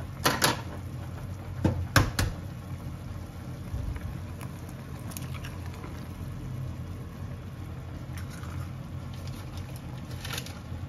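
Ramen broth bubbling in an aluminium mess tin over a gas burner, under a steady low hum. A few sharp knocks come in the first two seconds, and a fainter one near the end.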